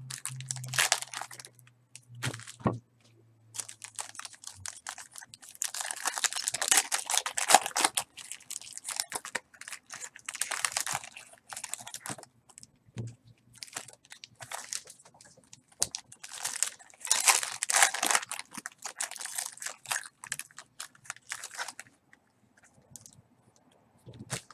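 Foil wrapper of a pack of baseball cards crinkling and tearing as it is opened by hand, in repeated bursts with short pauses between them.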